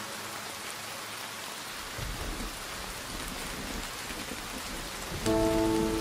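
Steady hiss of rain falling. About two seconds in, a low rumble joins it. Near the end, sustained notes of background music come in, louder than the rain.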